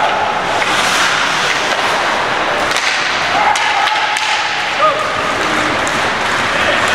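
Ice hockey play in an indoor rink: skate blades scraping the ice and a few sharp clacks of sticks on the puck, over a steady rink din with shouting voices.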